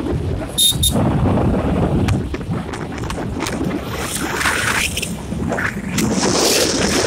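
Steady road rumble and wind buffeting the microphone from a moving vehicle. A passing vehicle's whoosh swells about four seconds in, and two short high beeps come just under a second in.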